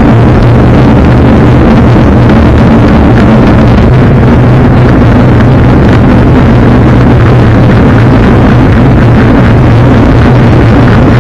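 Loud, steady wind roar on the microphone of a camera riding on a racing bicycle at speed, with a steady low drone underneath.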